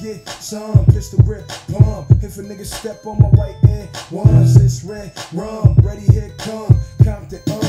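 Hip-hop track with rapping over a heavy, steady beat.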